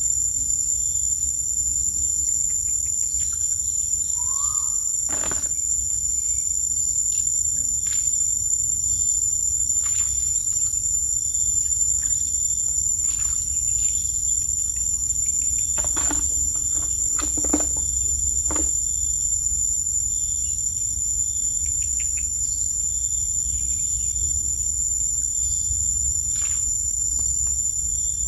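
Steady, high-pitched insect chorus of crickets or similar insects over a low, continuous rumble, with scattered short clicks and knocks, a cluster of them around two-thirds of the way in.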